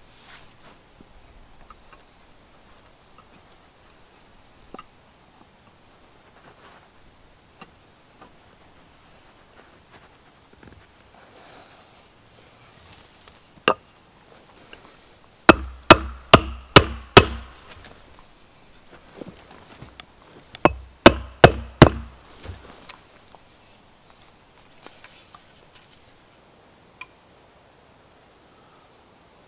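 Back of an axe head striking wooden parts of a home-made frame saw to knock them together: a single knock, then two quick runs of about five sharp wooden knocks, roughly three a second, a few seconds apart.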